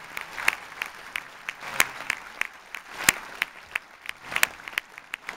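Hands clapping in a steady, even beat of about three claps a second.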